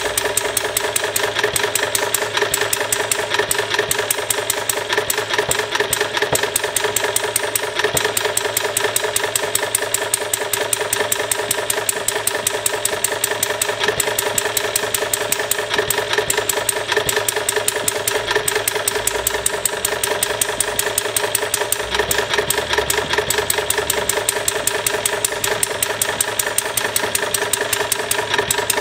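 Small homemade model gas engine built from plumbing parts, running steadily on a simple home-built venturi carburetor with a rapid, even firing beat.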